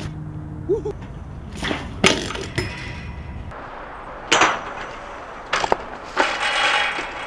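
A BMX bike and rider crashing on concrete: a series of sharp metal clatters and impacts, the loudest about two and four seconds in, then a longer scrape about six seconds in.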